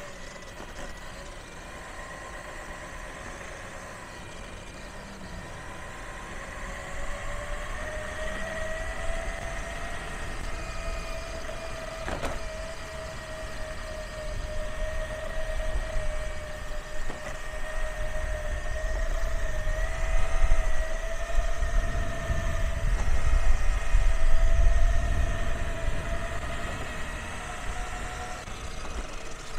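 Custom electric mountainboard's steel helical gear drive (Trampa, 7:1 reduction) whining as it rides, a steady tone that rises about six seconds in and wavers slightly with speed. Beneath it a low rumble grows louder in the second half, with a single click near the middle.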